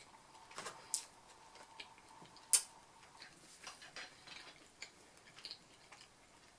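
Quiet eating sounds: a person chewing a bite of carrot cake, with scattered sharp clicks and ticks, the loudest about two and a half seconds in.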